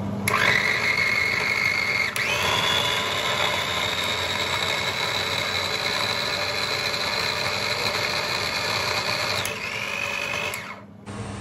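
Small electric food chopper running with its lid held down, blending chunks of food into a purée for a baby. The motor's steady whine steps up in pitch about two seconds in, then drops and stops shortly before the end.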